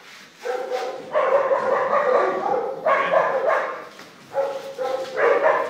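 Puppy giving several long, drawn-out cries one after another, starting about half a second in.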